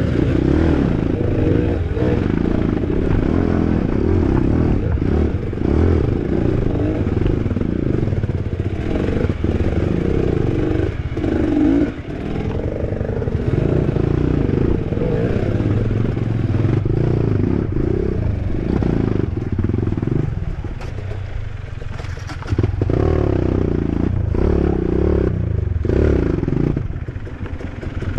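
Off-road dirt bike engines revving in uneven surges as the bikes climb a rocky stream bed. The engine note eases off about twenty seconds in and surges back a couple of seconds later.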